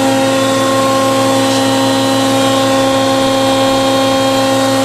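Steady, loud electric machinery hum from a running horizontal machining center's auxiliary units: its hydraulic pump unit and spindle chiller. The hum holds several even tones with no change in pitch or level.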